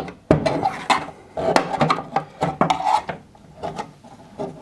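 Flat-headed screwdriver prying between a Samsung washing machine's kick panel and front panel: scraping, with sharp clicks and knocks as it is worked along to release the panel clips. The clicks and scrapes come thick in the first few seconds, then more sparsely.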